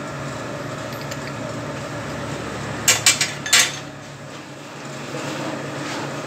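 Three or four sharp metal clanks in quick succession about three seconds in, steel tools knocking against a lathe's tool post, over a steady hum of machinery.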